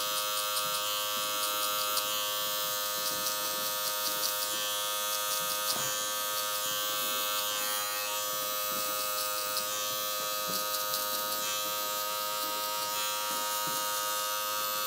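Adjustable electric hair clipper with a half guard and its blade lever open, buzzing steadily as it cuts hair on the side of the head.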